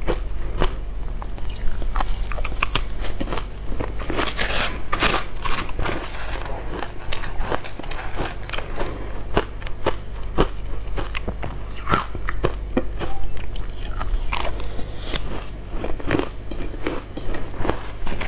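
Close-up crunching and chewing of matcha-coated ice chunks: a dense, irregular run of sharp cracks as the frozen pieces break between the teeth.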